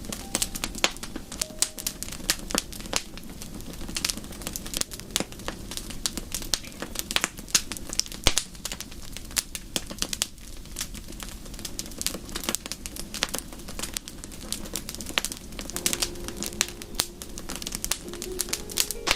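Wood fire in a fireplace crackling, with irregular sharp pops and snaps over a steady low rumble of burning.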